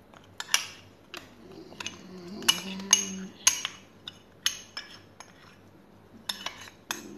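A metal utensil clinking against a glass bowl: a string of irregular, sharp clinks, each with a short ring.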